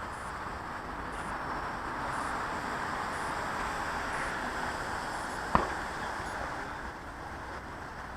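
Electric FunCub RC airplane's motor and propeller buzzing steadily in flight at a distance, swelling slightly in the middle and easing near the end. A single sharp click about five and a half seconds in.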